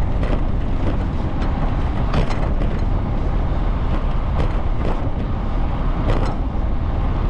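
Steady low rumble of wind on the microphone and bicycle tyres rolling on an asphalt path, with a few brief knocks from the bike going over bumps.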